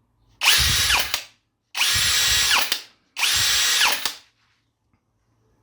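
INGCO 66 Nm brushless cordless impact drill running in three short trigger pulls of about a second each. Each time the motor whine rises as it spins up, holds steady, then falls as it winds down.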